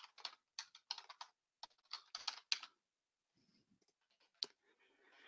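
Typing on a computer keyboard: quick runs of key clicks through the first two and a half seconds, then a few scattered, fainter taps.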